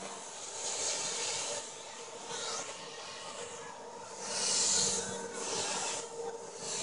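Compass Warp 360 electric RC helicopter in flight: a steady motor and rotor whine, with the rotor blades' whoosh swelling and fading about four times as it manoeuvres.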